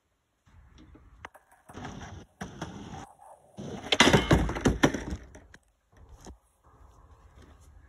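Skateboard wheels rolling over a wooden plank deck, then a short gap and a burst of loud knocks and clatter as the board comes down and bangs on the wood, loudest about four seconds in. The trick is failed: the board ends up tipped over on the deck.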